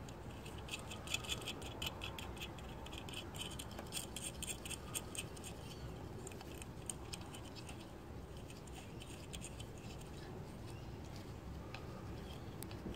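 Small irregular clicks and scratches of hands handling hardware: fingers working the nuts and wire ends on terminal bolts set through a clear acrylic plate. The clicks are thickest in the first half and sparser later, over a low steady background noise.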